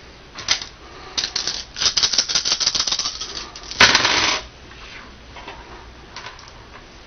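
A handful of small plastic six-sided dice clattering on a wooden tabletop: a quick run of sharp clicks and knocks for a few seconds, then a louder rattling burst about four seconds in. A few lighter clicks follow near the end as the dice are handled again.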